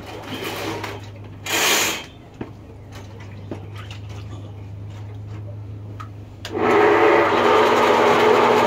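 Ridgid K-60 sectional sewer machine switched on about two-thirds of the way in and running loudly and steadily, spinning its 7/8-inch cable into a drain line suspected to be clogged with grease. Before it starts there is only light handling noise and one short loud noise about two seconds in.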